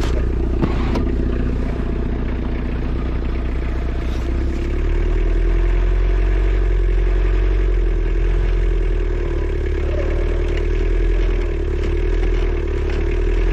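Isuzu C223 2.2-litre diesel in a Takeuchi TL130 tracked skid steer running steadily, with a few clanks from the machine in the first second. The engine gets louder about four and a half seconds in.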